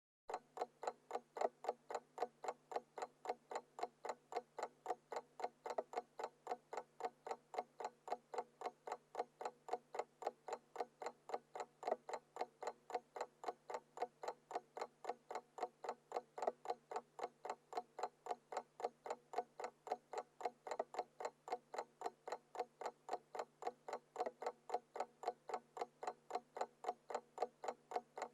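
Mechanical analog alarm clock ticking in a fast, even rhythm of several ticks a second.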